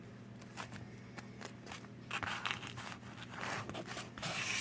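Hands rummaging through small diecast parts and their packaging: light scattered clicks, then denser rustling and scraping from about two seconds in, over a faint steady hum.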